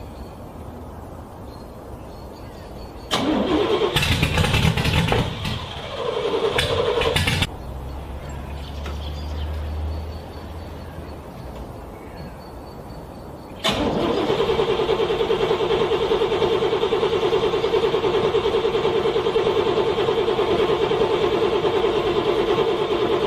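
Car starter cranking a cold engine with a steady fast whirr that does not catch, from a little past halfway to the end. Earlier there is a louder noisy burst lasting a few seconds, followed by a low hum.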